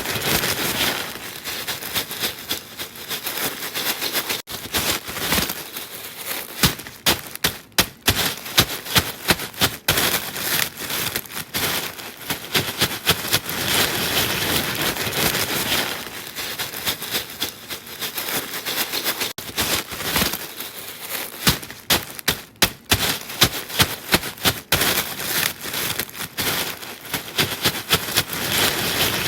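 Crisp food crunching and crackling close to the microphone: a dense run of sharp clicks, with spells of louder, spikier cracks.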